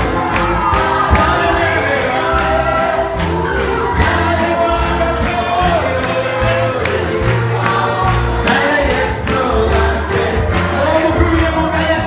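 Live gospel praise music: a group of voices singing over an amplified band, with a moving bass line and a steady drum beat.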